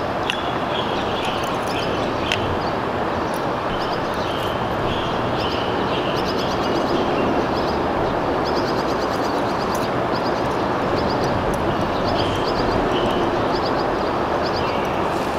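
Small birds chirping in short, quick repeated series over a steady rushing noise.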